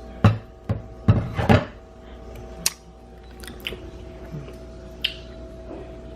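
A handful of sharp knocks and clunks from kitchenware being handled, loudest in a cluster in the first second and a half, then a few lighter taps, over a faint steady hum. The blender motor is not running.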